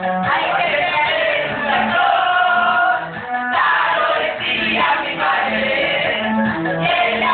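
A group of men and women sings together over a karaoke backing track, their voices overlapping. The singing breaks briefly about three seconds in.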